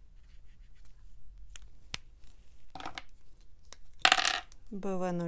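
Alcohol marker nib scratching softly on paper while a colour swatch is made, with a small click about two seconds in and a sharp clack about four seconds in as the marker is handled.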